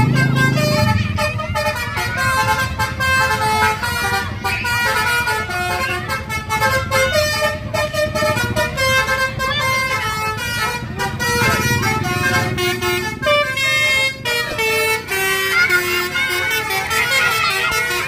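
Bus 'telolet basuri' musical horn playing a tune of short notes that step up and down in pitch.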